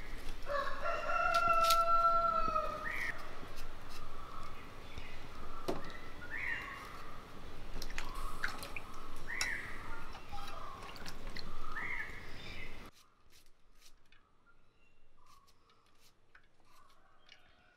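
A rooster crows near the start, one long held call. It is followed by shorter calls repeating every few seconds. About 13 s in, the background sound cuts off abruptly, leaving only faint clicks.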